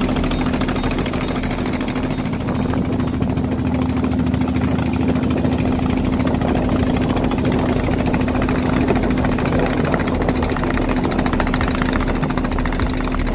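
Boat engine running steadily at a constant speed: an even, unbroken drone with a steady hum.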